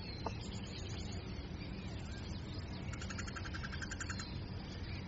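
Steady low outdoor rumble. About three seconds in, a rapid trill of about a dozen even pulses lasts just over a second.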